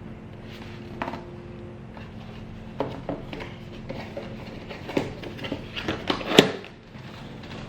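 Small parts and packaging being handled: scattered clicks, light knocks and rustles, the loudest knock about six seconds in, over a steady low hum.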